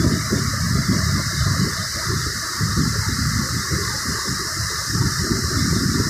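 Marsyangdi River whitewater rapids rushing over boulders: a loud, continuous noise of water with an uneven low rumble.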